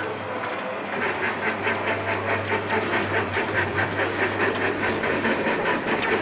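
Metal roller shutter rolling down over a shop front, its slats clattering in a fast, even rattle that grows denser as it goes, over a steady low hum.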